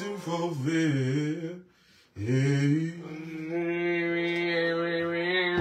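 A man's voice singing a slow, drawn-out tune: a wavering phrase, a brief breath about two seconds in, then one long held note.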